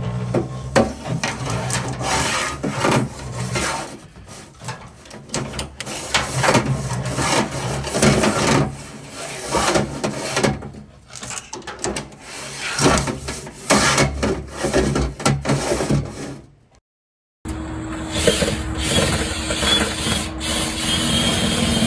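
Dryer vent duct being cleaned out: lint and a cleaning tool scraping and rubbing inside the duct with many clicks, over a steady motor hum. After a short break about three-quarters through, a different steady machine hum takes over.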